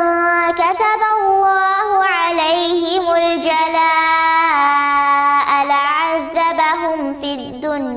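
A girl's voice chanting Quranic recitation in a melodic style. She holds long, drawn-out notes, with a wavering ornament partway through and a step down to a lower note about halfway.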